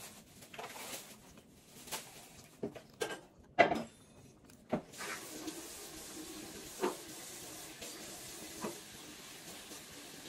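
Scattered small clicks and knocks from a child handling and eating a cake pop, the loudest a little over three seconds in. About five seconds in, a steady hiss with a low hum sets in and carries on underneath.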